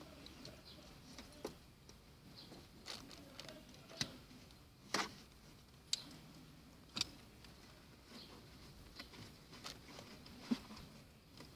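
Irregular clicks, knocks and light rustling of a child car seat being fitted: seat-belt webbing, buckles and plastic belt guides handled and clipped.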